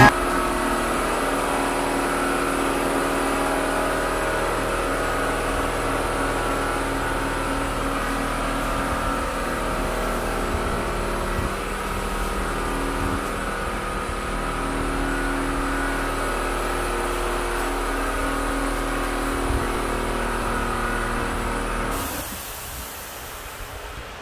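Steady motor hum with a hiss from HVLP paint-spraying equipment running, which stops about 22 seconds in.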